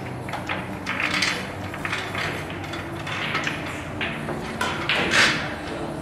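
Billiard balls clacking against each other as they are gathered by hand and packed into a triangle rack, with an uneven run of knocks and the loudest clack about five seconds in.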